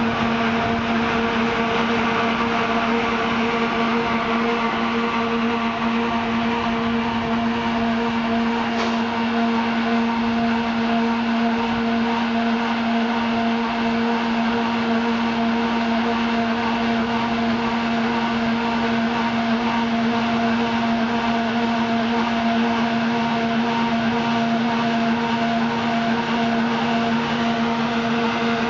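Apiesse Roto-Press 2C silage bagger running at a constant speed while it is fed chopped maize, a steady mechanical drone with a strong, even hum that does not change.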